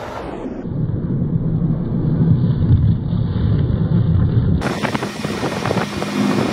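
Golf cart driving over a gravel road: a steady low rumble of its running gear and tyres on the stones. Near the end this gives way to a lighter, crackly noise.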